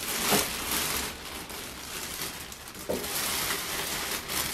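Clear plastic wrapping rustling and crinkling as bench parts are pulled out of a plastic bag and handled.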